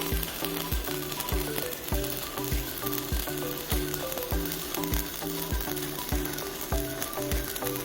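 Stick (shielded metal arc) welding arc crackling and sizzling steadily, under background music with a steady kick-drum beat.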